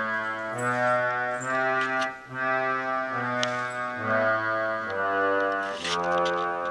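Yamaha PSR-I500 keyboard played on its Harmonium voice: sustained reed-organ notes and chords, changing about once a second.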